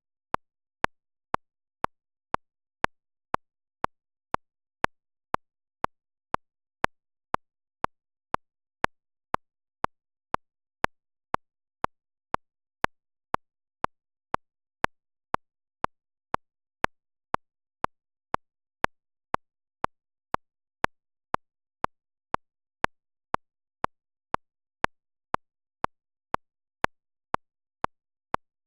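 A short, sharp click sound effect repeating evenly about twice a second, with silence between the clicks.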